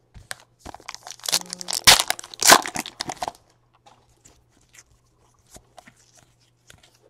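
Baseball trading cards being handled and flipped through: a burst of rustling, crinkling and flicking for about three seconds, then a few faint flicks and taps.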